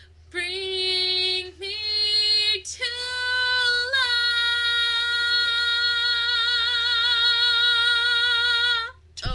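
An unaccompanied voice singing three held notes without clear words, each a step higher. The last is held for about six seconds with a wavering vibrato before cutting off.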